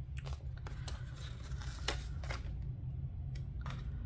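A paper sticker sheet is handled and a planner sticker is peeled off it: crinkling rustles and a series of short crackles, the loudest about two seconds in, over a steady low hum.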